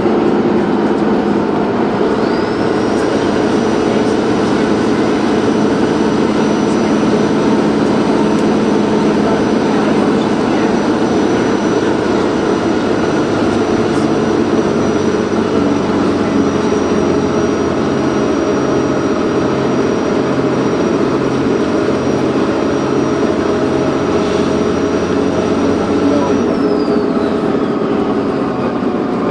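Dennis Trident 2 double-decker bus's diesel engine running steadily under way, with a high turbocharger whistle. The whistle rises in about two seconds in, holds steady, and falls away near the end.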